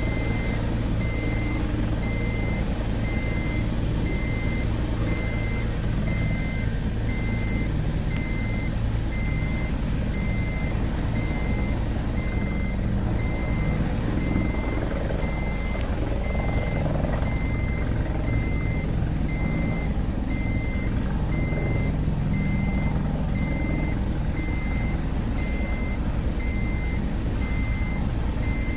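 Bell helicopters running on the ground, a steady low engine hum, with a regular electronic beep sounding about once a second throughout.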